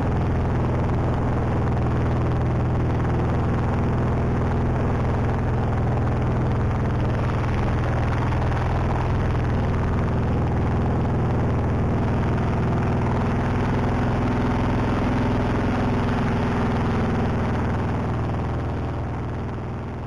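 Boat engine running steadily at a constant speed, fading out near the end.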